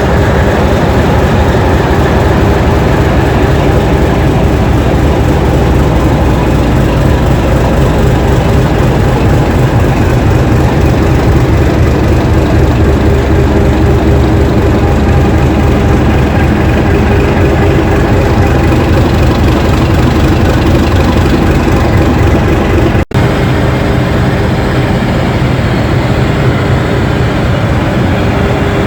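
English Electric diesel locomotive engine running steadily and loud, with a deep, even throb. About three-quarters of the way through, the sound drops out for an instant and then carries on.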